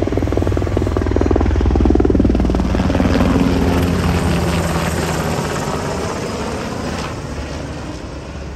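Helicopter flying past low, a rapid rotor beat over a steady drone, loudest about two seconds in and then fading away as it moves off.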